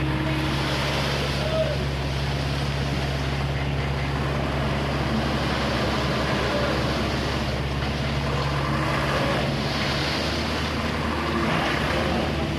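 Komatsu PC75 excavator's diesel engine running steadily, a constant low drone under a broad rush of machine noise. Its note shifts slightly near the end.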